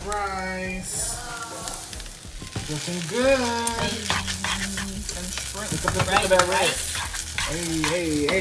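Fried rice with shrimp sizzling in a frying pan as a wooden spatula stirs and scrapes it, with many short scraping clicks. A wavering melody runs over it, coming and going.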